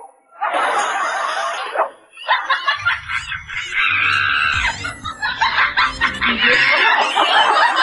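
Loud laughter and snickering, broken by a short pause about two seconds in.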